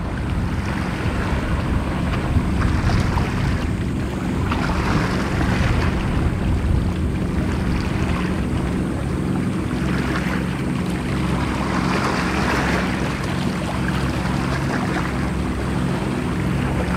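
Wind buffeting the microphone and waves washing, in swells every few seconds, over a steady low engine hum.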